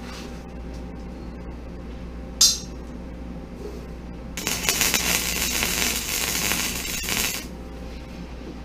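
Wire-feed welder arc welding steel: a brief burst of arc about two and a half seconds in, then about three seconds of steady crackling hiss as a weld bead is run, over a steady low hum.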